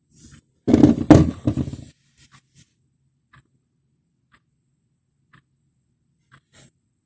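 Very faint ticking of a retro-style alarm clock's movement, about one tick a second. A loud low bump or rumble lasting about a second comes near the start and is the loudest sound.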